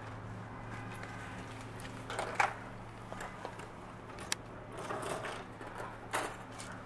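Camera handling noise: scattered knocks, clicks and rustles over a low steady hum. The sharpest knock comes about two and a half seconds in, with others near four and six seconds.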